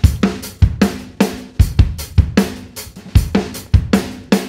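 Recorded drum kit loop playing back with a steady beat: kick, snare, hi-hats and cymbals. The kick is layered with a Superior Drummer sampled kick given extra bottom end, and reverb adds space to the snare and cymbals.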